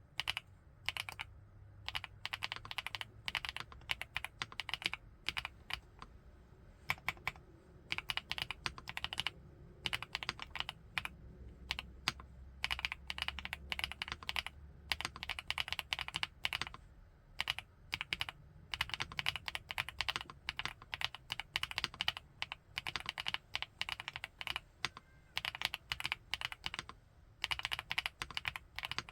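Typing on an FL-ESPORTS Geo75 mechanical keyboard with Kailh x Funkeys BCP (Black Cherry Pie) linear switches: fast runs of keystrokes in bursts with short pauses, the switches bottoming out in the gasket-mounted, foam-filled case.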